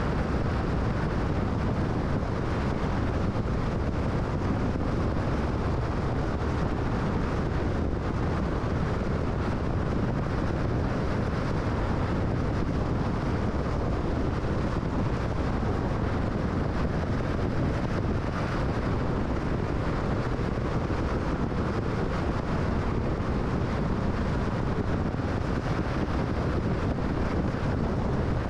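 Steady road noise of a car driving at highway speed: tyre and wind noise, even throughout.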